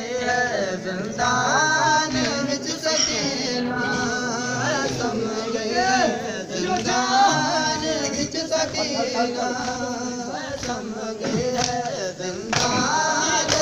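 Men's voices chanting a noha, a Shia mourning lament for Sakina, with the pitch of the singing line rising and falling and no pause.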